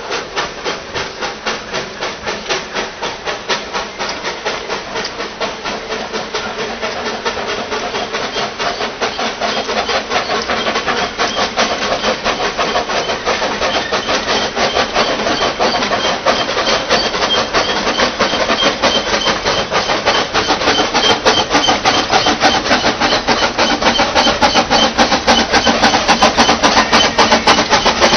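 Narrow-gauge steam locomotive working a train of ore wagons, its exhaust chuffing in a quick, even beat that grows steadily louder as it approaches.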